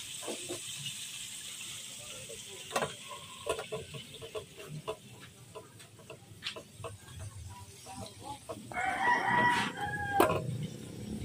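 A rooster crowing once, a pitched call about a second and a half long, about three-quarters of the way through, after a stretch of scattered small clicks and knocks.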